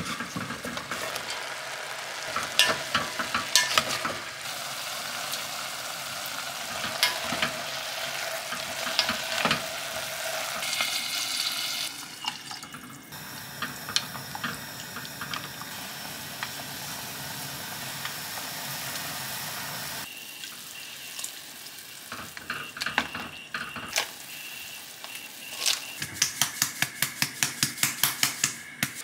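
Soup cooking in an enamel pot on a gas stove: a wooden spoon stirs and knocks against the pot over a sizzling, bubbling hiss. Near the end a salt shaker is shaken quickly over the pot, about five sharp rattles a second.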